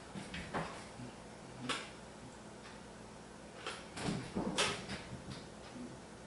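A few scattered light knocks and clicks over a low steady hum, the loudest cluster about four seconds in.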